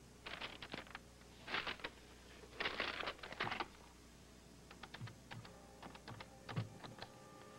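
A telephone being handled and dialled by hand: quick clusters of small clicks and rattles in the first few seconds, then sparser single clicks with a few soft thumps near the end.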